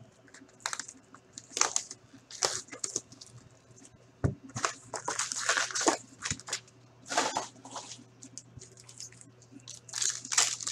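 Plastic-foil wrapper of a 2018-19 Upper Deck Ice hockey card pack being torn open and crinkled by hand, in irregular rustling bursts, busiest about halfway through and again near the end.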